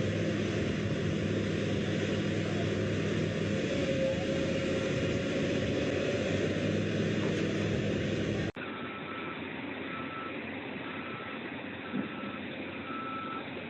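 A heavy vehicle's engine runs with a steady low drone and cuts off abruptly. Then comes a quieter scene where a reversing alarm sounds a regular series of short, even beeps.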